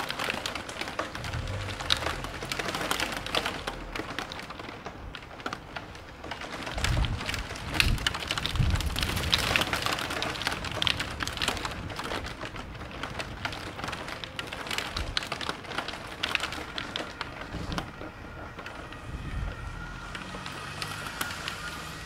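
Heavy rain pouring, with dense spatters and drips. Low rumbles swell and fade a few times, the strongest a little before the middle.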